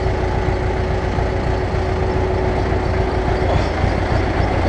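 Ursus tractor's diesel engine running steadily at close range, with a steady tone over it that stops about three and a half seconds in while the front loader's hydraulic levers are worked.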